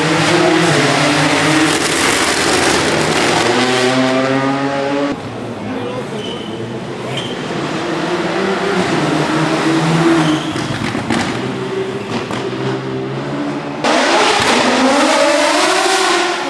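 Rally car engine pulling hard, its revs climbing again and again through the gears. The sound changes abruptly about five seconds in and again near the end, like cuts between different passes.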